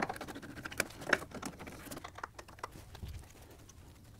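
Faint, irregular clicks and scrapes of hand tools working a radiator hose clamp loose, with a couple of sharper clicks about a second in.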